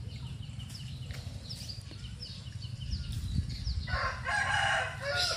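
A rooster crowing once, a pitched call lasting about a second and a half that starts about four seconds in, over faint short high chirps.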